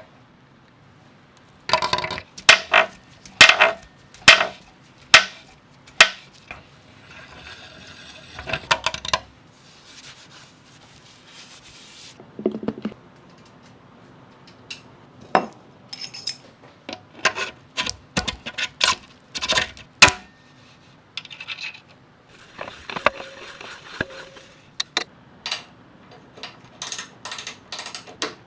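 Irregular sharp metallic clinks and knocks, a few at a time with pauses between, as of metal tools or parts being handled and set down.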